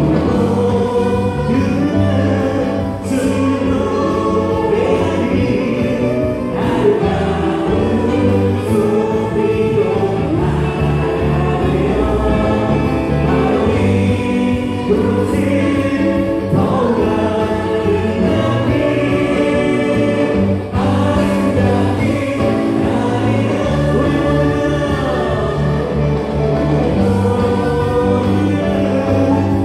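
Live gospel worship song: a group of singers with a Yamaha Montage 8 keyboard, electric bass guitar and drums playing together. The band plays steadily, with a few cymbal-like crashes.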